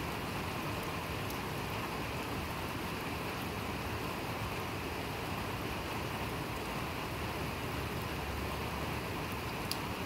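Steady rain falling, an even hiss without let-up, with one sharper drop tick near the end.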